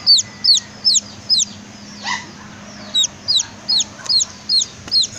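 Young domestic chick peeping: loud, high peeps that fall in pitch, about two or three a second, with a break of about a second and a half before another run of peeps.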